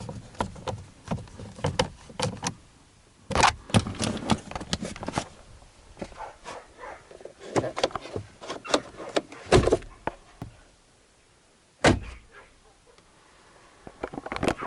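Hard plastic clicks, knocks and rattles of a pickup's dash glove compartment being handled and snapped back into place, with a few louder thumps spread through the run and a single sharp knock near the end.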